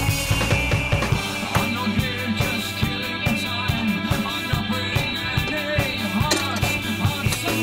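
Background music with a drum kit beat.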